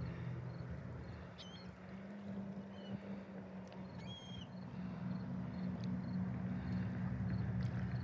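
A steady low motor hum, with two short high chirps about a second and a half and four seconds in.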